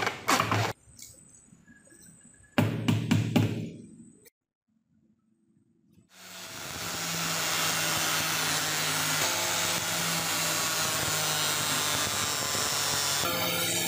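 Hacksaw strokes cutting through a bundle of broom sticks, in two short runs, then a pause. About six seconds in, an angle grinder with a sanding pad spins up and runs steadily as the end of the stick bundle is sanded flat against it.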